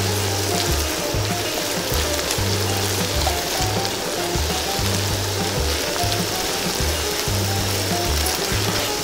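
Quail pieces deep-frying in hot oil with a steady sizzle, under background music with a repeating bass line.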